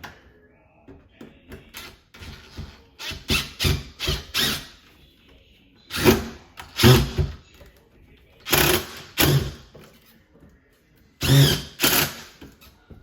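Cordless drill run in short trigger bursts, two or three at a time with pauses between, driving screws to fasten a doggy door frame.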